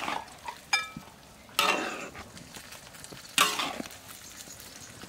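A metal spatula scrapes and knocks against a large steel wok as noodles and vegetables are stir-fried, over a low sizzle of frying. There are three louder scrapes with a brief metallic ring, about a second or two apart.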